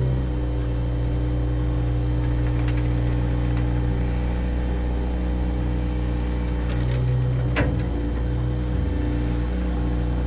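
Bobcat 642 skid-steer loader's engine running steadily while it works a topsoil pile, with one brief sharp sound about three quarters of the way through.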